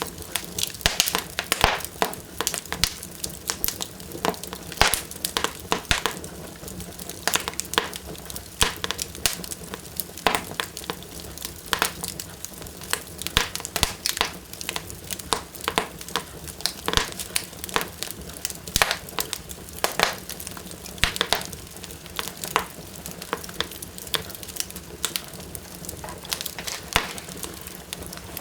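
Wood fire burning strongly in a fireplace, crackling and popping with many sharp, irregular snaps over a steady low hiss.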